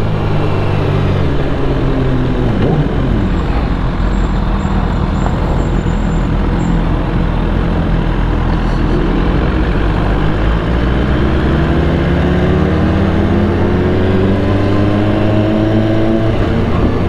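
Motorcycle engine under way with wind rush, heard from the rider's helmet. The engine note drops about two seconds in as the bike slows, then climbs steadily through the second half as it accelerates.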